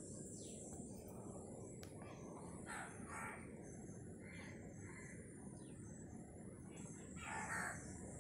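A crow cawing, a short run of calls about three seconds in and again near the end, over a steady low sizzle of vegetables frying in oil in an iron kadhai.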